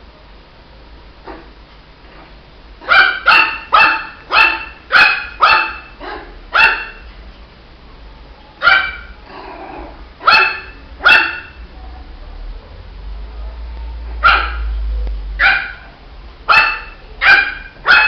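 Shih Tzu puppy barking: short, high yaps in bursts, a quick run of about seven barks, then a few spaced ones, then another quick run near the end.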